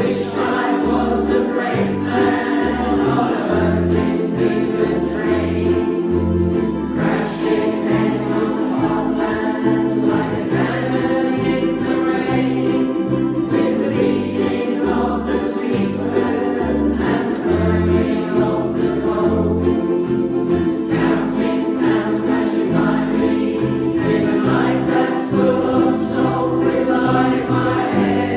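Live band playing a song with sung vocals over steady strummed strings and a pulsing bass line, run through during a sound check.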